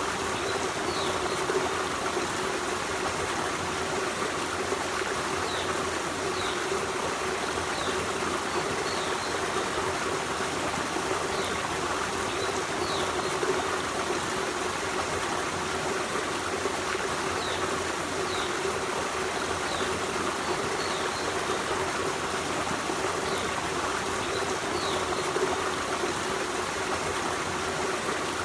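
Forest stream running steadily over stones, a continuous trickling rush of water. Brief high chirps recur every second or two.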